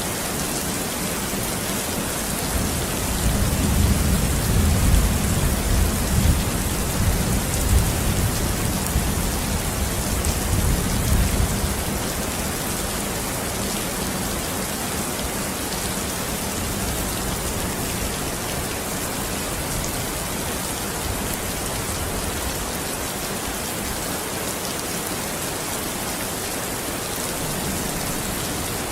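Steady heavy rain falling, with a low rolling rumble of thunder that builds about three seconds in and fades out about twelve seconds in.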